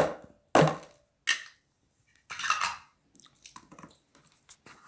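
A spoon scraping butter off into a mixing bowl of date paste: four short scrapes in the first three seconds, then a few faint light taps.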